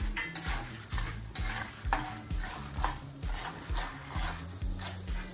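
A flat spatula stirring and scraping dry, unpopped popcorn kernels around a heavy metal kadai in hot oil. The kernels rattle and scrape against the pan in irregular strokes.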